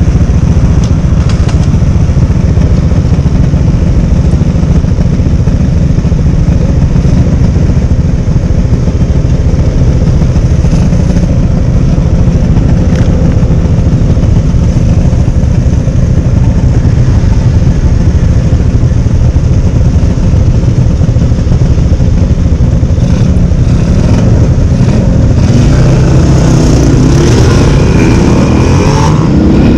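Rusi Flash GP 150Fi scooter's 150 cc fuel-injected engine idling with a steady low rumble while stopped in traffic. Near the end the engine revs up as it accelerates away, its pitch climbing.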